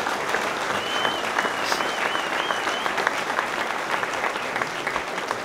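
Audience applauding: dense, steady clapping from a crowd that thins out near the end.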